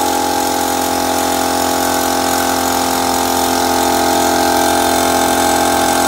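A 24-litre, 2 HP air compressor running steadily under test, its motor and pump giving a continuous hum with several steady tones, a little louder about two-thirds of the way through.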